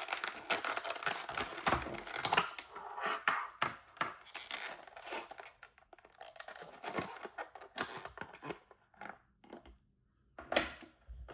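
Plastic and card toy packaging crinkling and rustling as it is handled, with many small clicks and taps. The crinkling is dense at first, then thins to scattered clicks, with a brief lull near the end before another short rustle.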